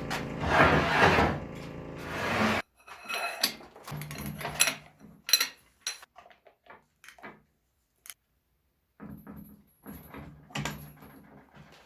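Music that cuts off suddenly about two and a half seconds in. It is followed by scattered knocks and clinks, irregular with short gaps, from tools and metal parts being handled as a farm-machine gearbox is taken apart.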